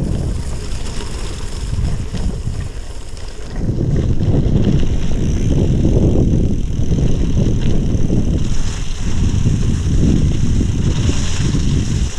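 Wind buffeting the microphone over gravel-bike tyres rolling through wet gravel and slush: a steady low rumble that dips for a couple of seconds and grows louder again about four seconds in.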